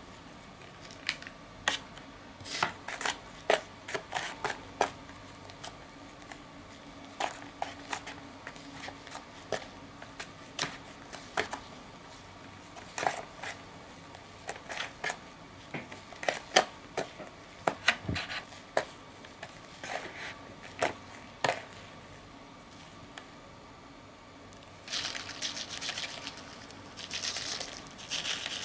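A small plastic spoon stirring and whipping a foamy DIY candy mix in a plastic tray, with irregular clicks and taps of the spoon against the tray. Near the end, a denser rustling as crunchy candy topping is shaken out of a packet onto the foam.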